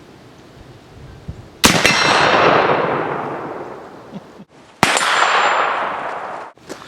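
Two shots from a .45-70 black-powder Sharps Model 1877 replica single-shot rifle, about three seconds apart, each a sharp crack followed by a long fading rumble of echo.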